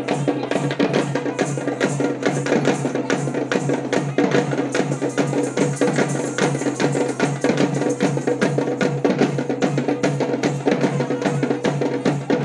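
Fast, steady drumming: a loud, even run of sharp strikes over a deeper pulsing beat.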